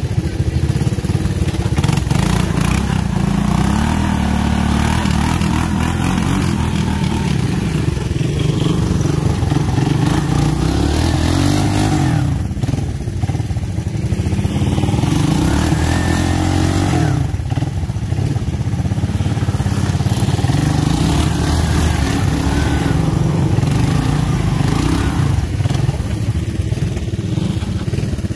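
Honda three-wheeler engines running and revving, the pitch rising and falling again and again as the machines are ridden up a dirt bank, with a couple of brief drops in revs partway through.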